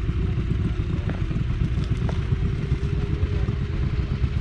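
1944 John Deere Model L's 1.1-litre two-cylinder petrol engine idling steadily with an even low pulsing beat.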